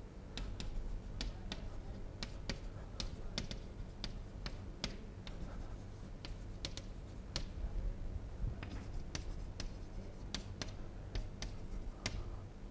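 Chalk writing on a chalkboard: a run of short, irregular taps and scratches as words are written out stroke by stroke.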